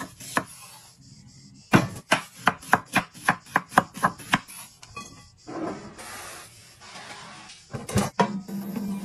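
Chef's knife slicing onions on a wooden cutting board: a quick run of sharp knocks, about five a second. Near the end a thud as a portable induction hob is set down on the table, then a steady low hum starts.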